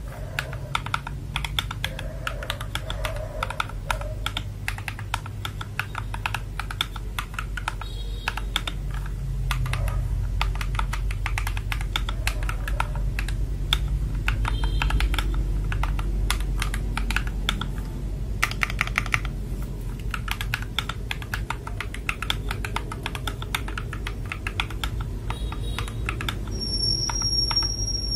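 FL Esports MK870 mechanical keyboard with linear switches being typed on fast and continuously, a dense run of keystroke clacks as a sound test. Near the end a steady high-pitched electronic beep starts under the typing.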